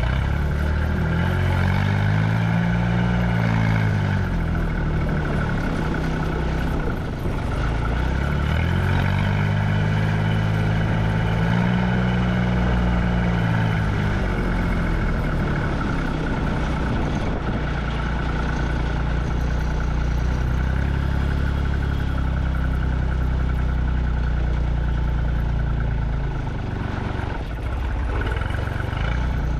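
Delivery truck engine running while driving; its note rises and falls twice in the first fifteen seconds, then holds steady.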